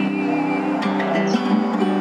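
Acoustic guitar playing between sung lines of a song.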